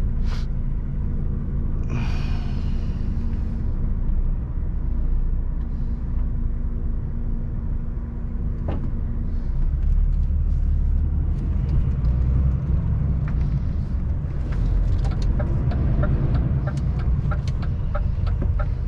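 Inside a truck cab on the move: the diesel engine runs under steady road rumble, which grows louder about halfway through. Small clicks and rattles sound in the second half.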